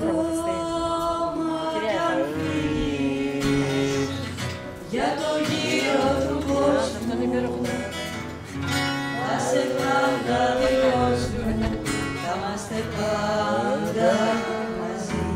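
A woman sings a Greek song live through a microphone, accompanied by a strummed acoustic guitar.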